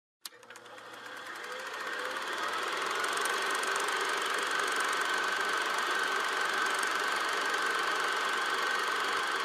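A small electric motor running steadily with a whine, fading in over the first two seconds after a sharp click.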